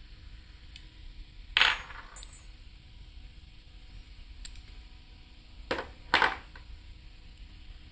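Small metal parts or tools clinking: one sharp clink, then about four seconds later two more about half a second apart, each ringing briefly.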